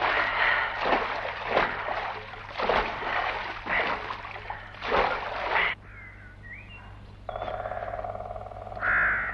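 Men wading through swamp water, splashing heavily about once a second with each stride. Just before six seconds in the splashing stops abruptly; a few short chirps follow, then a steady buzzing tone starts.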